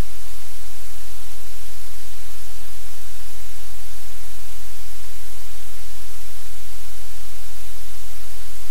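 Loud, steady hiss of static with a low electrical hum underneath, unchanging throughout.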